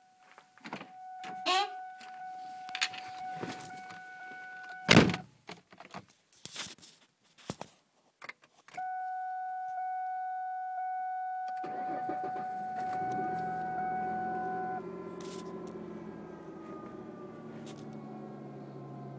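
A car's warning chime sounds steadily, a car door slams shut about five seconds in, then the chime comes on again. About twelve seconds in, the 2001 Ford Mustang's engine starts from cold in 6-degree weather and runs at a fast cold idle that slowly drops in pitch.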